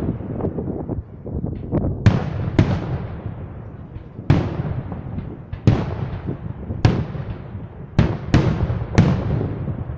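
Aerial firework shells from a Sorrentino Fireworks display bursting one after another: about eight sharp bangs in ten seconds, each with a long fading echo, over a constant low rumble.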